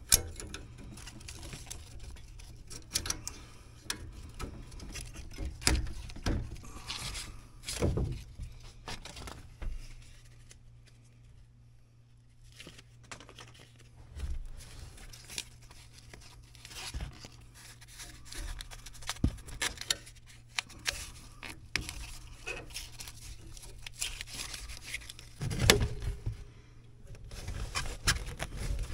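Hands working on an air handler's refrigerant fitting and sheet-metal cabinet: irregular scrapes, rustles and sharp knocks over a steady low hum, with a louder cluster of knocks and rumble near the end as the cabinet's access panel goes back on.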